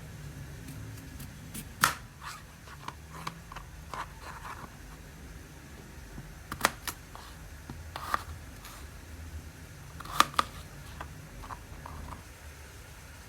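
Scattered knocks and light clinks of kitchenware being handled, a few sharper ones near the middle and a close pair near the end, over a steady low hum.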